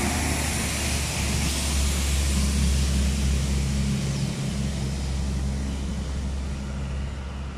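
A vehicle engine running steadily with a low hum, under the steady hiss of traffic on a wet road.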